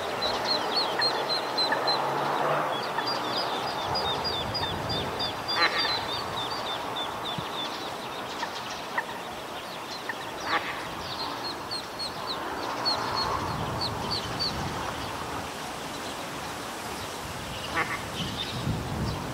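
Eastern spot-billed duck ducklings peeping in quick runs of high-pitched calls, in two bouts, with a few louder single calls in between.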